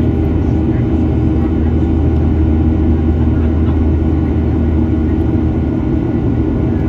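Cabin noise of a Boeing 737-800 climbing out after takeoff, heard from a seat by the wing: its CFM56-7B turbofan engines at climb power make a steady, loud drone with a constant low hum.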